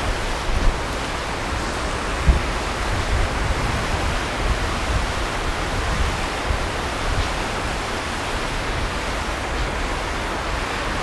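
Steady rush of river water pouring over a stepped weir, with a couple of brief low bumps on the microphone.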